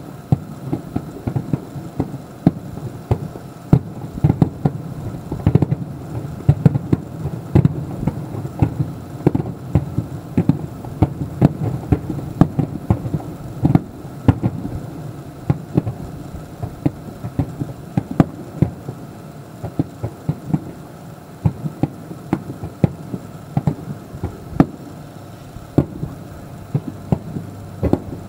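Aerial firework shells (Japanese uchiage hanabi) bursting in a rapid barrage: many sharp bangs, several a second, over a continuous low rumble.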